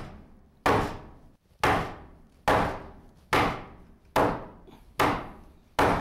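Hammer blows on the foot of a wooden 2x6 temporary post, about seven evenly spaced strikes a little under a second apart, each fading out before the next. Each blow drives the angled post more upright under the garage door header, jacking it up to take the load off the rotted post.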